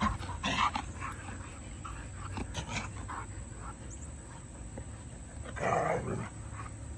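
Two huskies vocalizing during rough play: a few short dog noises in the first second, and a longer, louder one a little before the end.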